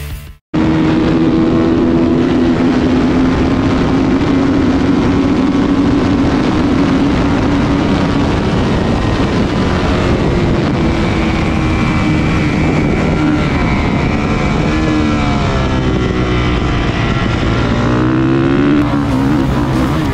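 2015 Kawasaki KX450F supermoto's single-cylinder four-stroke engine heard from the onboard camera, starting half a second in and held at high revs on a fast straight. In the last few seconds its pitch drops and climbs again several times as the rider brakes and gets back on the throttle through the bends.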